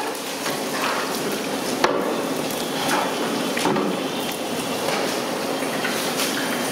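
Hot oil sizzling and bubbling in a large metal cooking pan, with sharp knocks and clicks now and then, the loudest about two seconds in.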